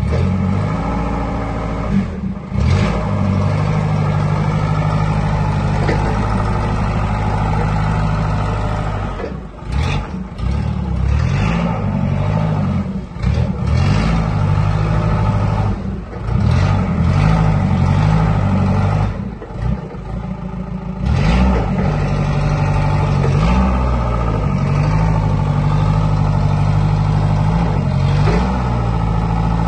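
Datsun forklift's Nissan diesel engine running under load as the forklift drives forwards and reverses, the revs rising and falling over and over, with brief easings off between runs.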